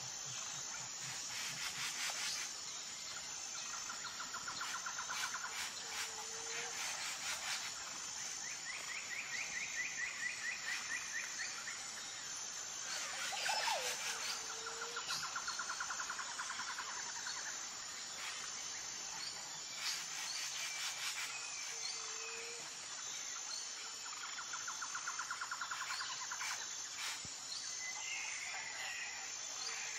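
Bird and insect ambience: a steady high chirring of insects with rapid bird trills and short calls. The same trills and calls come back about every eight seconds.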